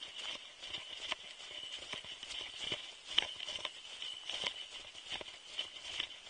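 Footsteps in snow, irregular crunching steps about one or two a second, over a steady faint hiss.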